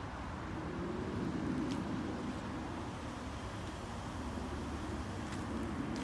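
Steady low background rumble with a few faint clicks.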